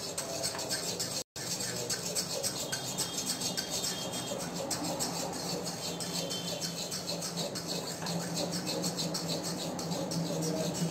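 A spoon scraping quickly and steadily around the bottom of an aluminium kadhai, stirring caramelised sugar syrup off the heat to cool it, in a fast even scratching rhythm. The sound cuts out for an instant about a second in.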